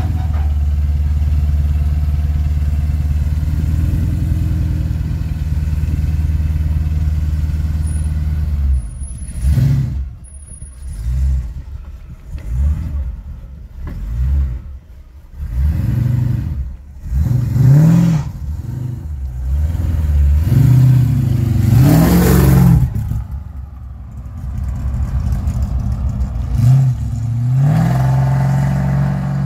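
Supercharged 392 Hemi V8 of a 1955 DeSoto idling steadily, then revved in a series of quick throttle blips that rise and fall, the loudest about two-thirds through. It settles back to a steady run that climbs in pitch near the end.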